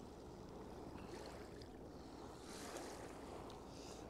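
Faint river ambience: water moving and lapping, with a low steady rumble underneath.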